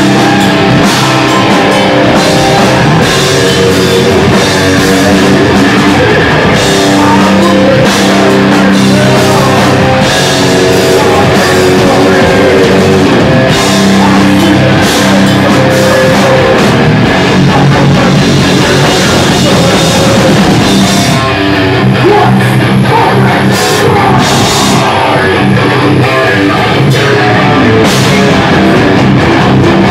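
Live rock band playing loud, heavy music on electric guitar and drum kit, with a steady stream of drum hits.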